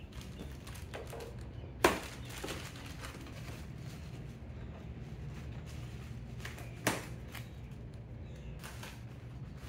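Scissors cutting through plastic packing straps: two sharp snaps about five seconds apart, over a low steady background hum.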